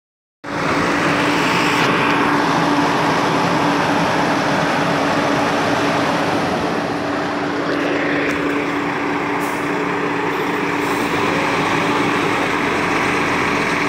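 Loud, steady running of a Volvo FMX 440 heavy tractor's six-cylinder diesel as it pulls a roughly 110-tonne transformer load at crawling speed, with a constant hum beneath the engine noise.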